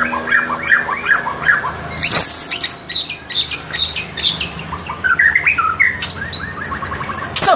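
A Medan white-rumped shama (murai batu) singing loudly and vigorously: a fast run of repeated chirps, then varied sharp, harsh notes and a rising-and-falling phrase. The harsh, cough-like calls, which keepers call "batuk-batuk", are the sign of a bird that has been agitated into full song.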